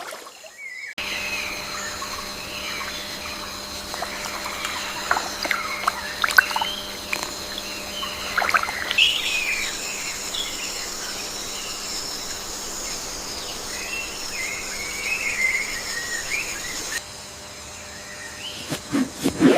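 Tropical forest ambience: various birds give short chirps and calls over a steady, high-pitched drone.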